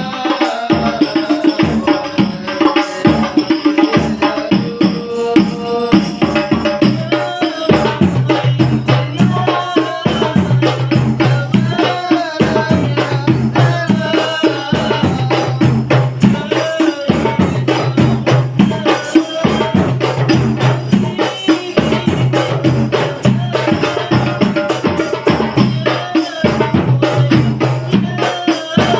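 A rebana ensemble of Indonesian frame drums playing a fast, steady interlocking rhythm, with a voice singing a wavering melody over it.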